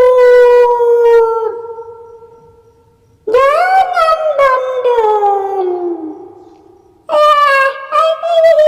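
Long, drawn-out howling wails, one tailing off at the start, a second beginning about three seconds in and sliding steadily down in pitch as it fades, and a third starting near the end: an eerie howl used as the kuntilanak ghost's cry.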